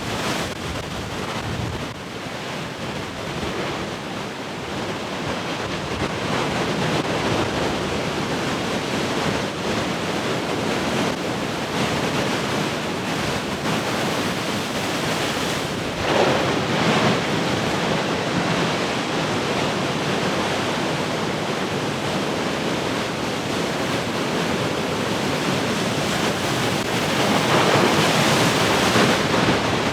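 Ocean surf: large waves breaking and washing ashore in a continuous rushing roar, with two louder breakers about halfway through and again near the end. Wind buffets the microphone throughout.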